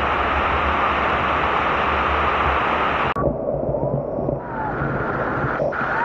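Water pouring over a check-dam overflow wall, a loud steady rush of falling water with the camera right in the spray. About three seconds in the sound changes abruptly to a duller, quieter rush, with a few faint high tones.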